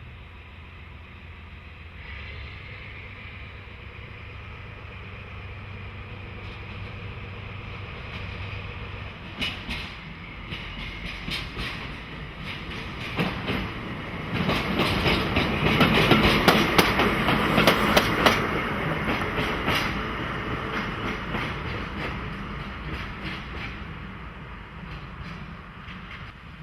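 A train passing. It comes closer with wheels clicking over the rail joints, is loudest about halfway through, then fades away.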